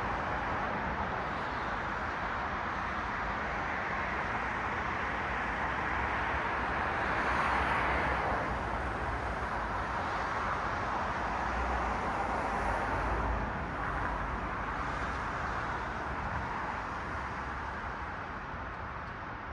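Road traffic: cars passing on a city street, a steady tyre-and-engine rush that swells as vehicles go by, about 8 seconds in and again around 12 to 13 seconds, then slowly fades.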